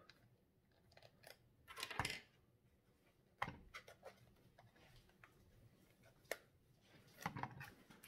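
Faint plastic clicks and scraping from a pistol-grip RC transmitter as its battery compartment is opened with a small screwdriver. There is a brief scrape about two seconds in, a sharp click about a second and a half later, and another click and some handling noise near the end.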